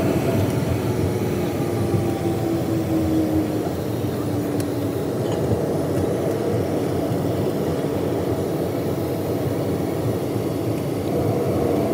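Jet airliner's engines running, heard from inside the cabin as the plane rolls on the ground: a steady rumble and rushing noise, with a faint whine that slowly drops in pitch over the first few seconds and then holds steady.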